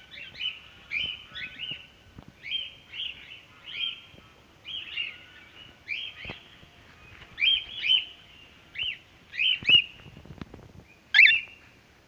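Cockatiels calling in flight: a long run of short chirping calls that rise and fall in pitch, about one or two a second, with a louder call near the end.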